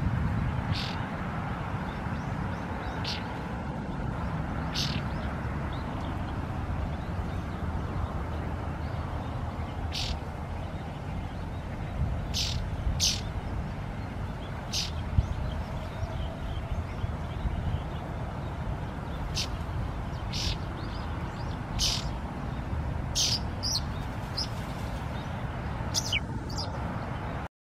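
White-browed laughingthrush giving short, sharp chirping calls, more than a dozen at irregular intervals and coming more often in the second half, over a steady low background rumble.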